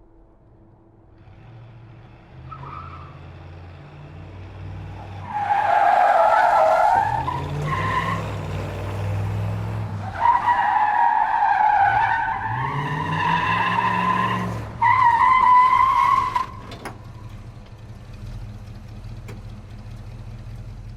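Muscle car skidding: the engine revs up and down while the tyres squeal in two long skids, the second the longest and loudest, ending with a sharp cut. The engine then carries on at a low steady rumble.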